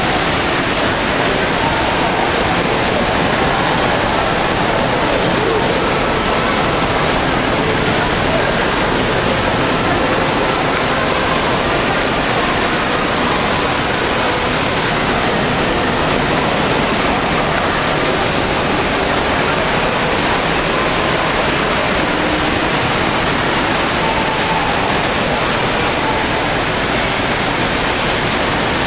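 Steady rush of an indoor waterfall, falling water making a loud, even noise.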